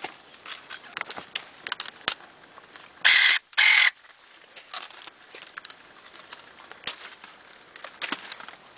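Kawano electric pruning shears cutting dragon fruit: two short, loud motor whirs close together about three seconds in, with scattered clicks and rustling from handling the stems before and after.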